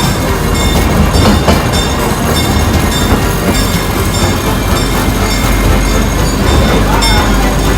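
Galloping Goose rail motorcar running on its track: a steady, loud rumble of engine and wheels on the rails.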